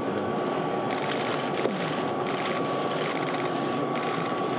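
Steady rushing hum of background machinery or air handling with a faint high tone running through it, and short bursts of rapid clicking about a second in and again a little after two seconds.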